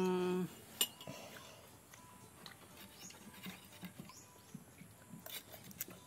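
A voice holds a drawn-out word for about half a second, then faint scattered clicks and taps of spoons against coconut shells, a plastic tub and glasses, with a sharper click about a second in and a few more near the end.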